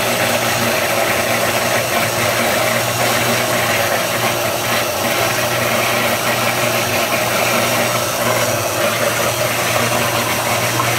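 Oster countertop blender's motor running steadily, blending a thin chocolate-milk liqueur mix, with a constant hum.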